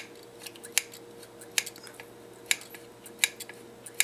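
Drum-type TV channel tuner from an Admiral television being turned by hand. Its detent and spring-loaded contacts snap over the drum's dome-shaped contacts in sharp metallic clicks, about nine of them, irregularly spaced.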